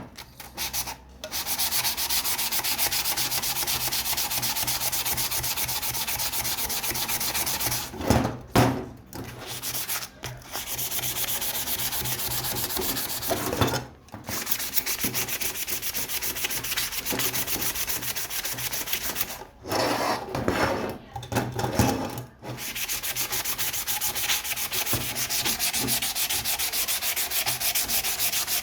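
Steady abrasive sanding on lantern parts, in long stretches broken by a few short pauses with sharp knocks.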